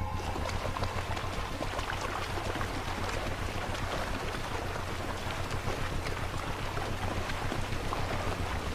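Lionesses wading through a shallow river, water splashing and sloshing around their legs in many small, quick splashes. A steady low drone runs underneath.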